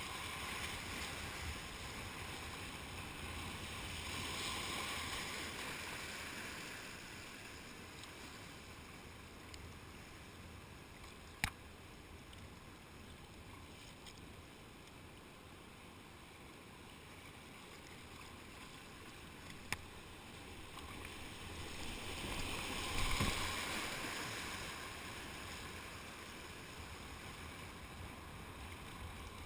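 Rushing whitewater of a river rapid heard from a kayak, swelling louder in the first few seconds and again about three-quarters of the way through. Two sharp clicks break in, one near the middle and one about two-thirds in.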